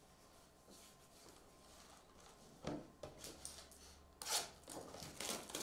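Faint handling of trading-card packaging: a single soft knock about halfway through, then the crackle of a small cardboard card box being torn open by hand near the end.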